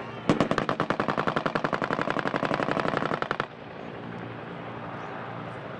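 Machine gun firing one long burst of about three seconds, fast evenly spaced shots that stop suddenly, leaving a steady low background noise.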